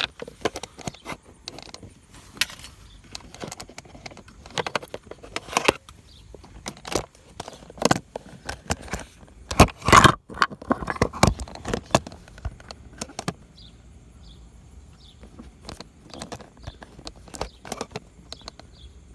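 Plastic trim parts of a car's gear shift surround being handled and pressed back into their clips: a run of sharp clicks, knocks and rattles, busiest in the first two-thirds and thinning out near the end.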